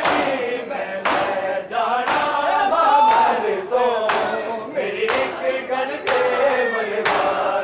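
Crowd of men chanting a Shia noha together, with unison chest-beating (matam) landing as a sharp slap about once a second.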